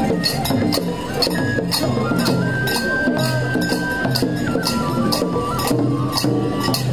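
Japanese festival hayashi music: a high flute melody held and stepping between notes, over a steady beat of metal hand cymbals and drums striking about three times a second.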